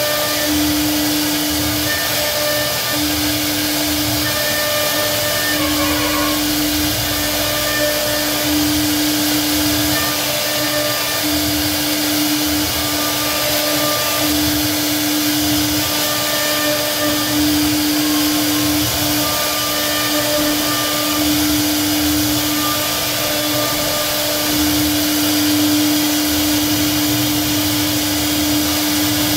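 CNC router spindle running with a steady high hum while its bit carves a relief pattern into a wooden panel. The cutting noise of the bit in the wood rises and falls as the head moves.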